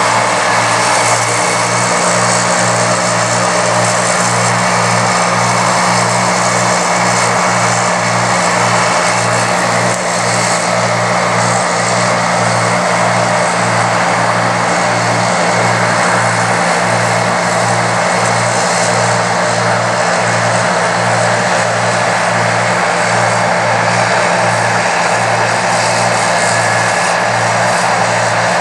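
Farm machinery running steadily at a corn harvest: a loud, even drone with a low throb pulsing about one and a half times a second.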